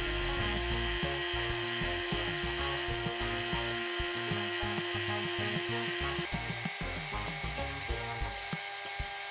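Metal lathe running, its chuck spinning as a cutting tool turns down a small steel shaft, with a steady motor whine that changes pitch about six seconds in. Background music plays underneath.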